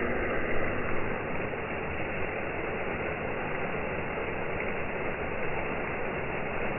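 Backyard pond waterfall running: a steady rush of falling water.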